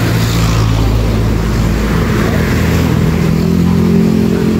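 An engine running steadily with a low hum, its pitch changing about halfway through.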